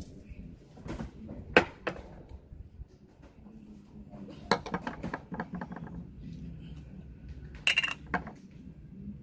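Raw oyster shells clattering and clacking against a stainless steel bowl and each other as they are handled: a sharp clack about one and a half seconds in, a run of quick clicks around the middle, and another short clatter near the end.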